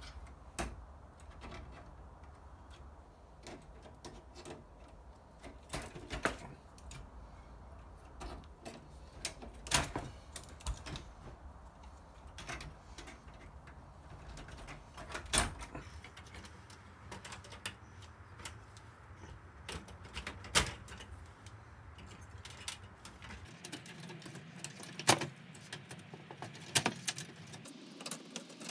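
Irregular clicks, taps and clinks of hand tools and loose metal parts as a ceramic hob is taken apart, with a few sharper knocks among them.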